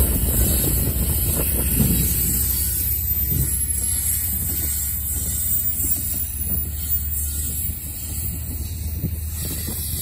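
Freight train's open-top hopper cars rolling past, a steady low rumble of wheels on rail, with wind buffeting the microphone.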